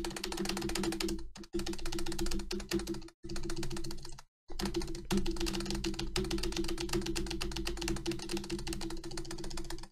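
Computer keyboard spacebar pressed rapidly and repeatedly, about six clicks a second, a dense run of key clicks broken by a few brief pauses, with a steady hum underneath.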